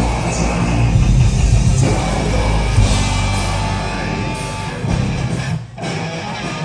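A live heavy rock or metal band playing loudly, with electric guitars and drums, recorded on a phone in the crowd. There is a short break in the music near the end.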